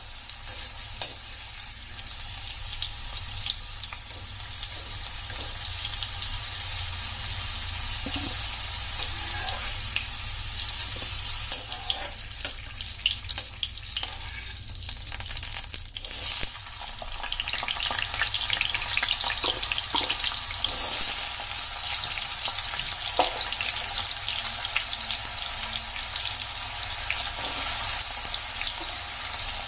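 Capsicum pieces, then potato cubes, frying in hot mustard oil in an aluminium kadhai: a steady sizzle full of small crackles, with a metal slotted spoon clicking and scraping against the pan. About halfway through, the sizzle grows louder and denser as the potatoes go into the oil.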